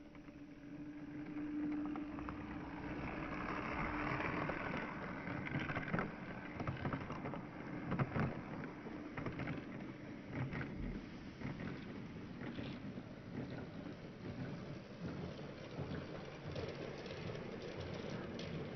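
Lego toy train running on its plastic track: a steady rattling rumble with scattered clicks, and a faint motor hum that fades out in the first few seconds.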